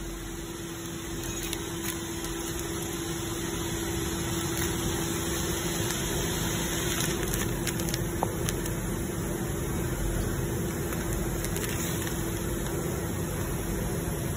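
Powder packing machine running steadily: a constant hum with one held tone over an even hiss, growing a little louder over the first few seconds, with a few faint clicks.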